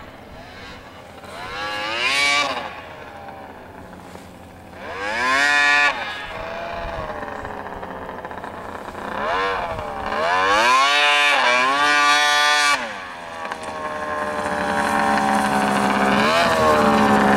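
Arctic Cat snowmobile engine revving in several bursts, its pitch climbing and dropping with each throttle blip. Near the end it holds a steadier, rising note that grows louder as the sled comes closer.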